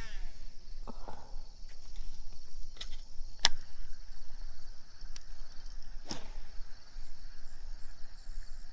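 Steady high-pitched insect chorus of crickets, with three sharp clicks about one, three and a half and six seconds in, over a low rumble.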